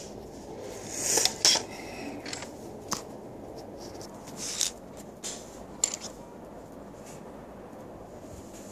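Handling noise: small hard plastic clicks and scrapes, with a loud cluster about a second in and a few single clicks between three and six seconds.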